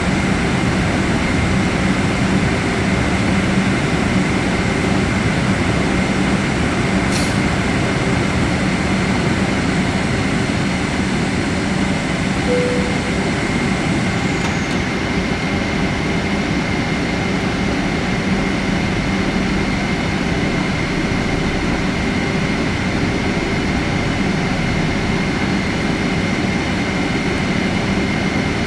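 Steady cabin noise inside a jet airliner: an even rush of engine and air noise with a constant low hum and a thin high tone, and a single brief click about seven seconds in.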